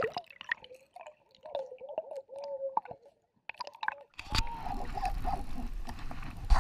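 Muffled underwater gurgling and clicking picked up by a submerged action camera in a river, with a faint wavering tone. About four seconds in it switches to a steady rush of river current above water, with low rumble typical of wind or water on the camera's microphone.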